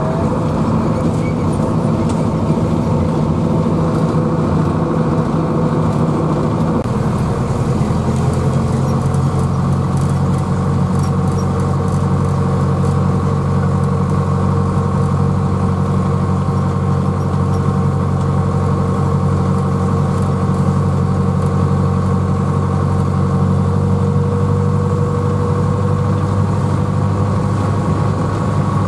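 Tractor engine running steadily on the road, heard from inside its cab. The engine note changes about seven seconds in, then holds steady.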